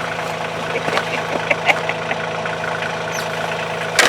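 Engine idling steadily, with scattered light clicks and knocks over it.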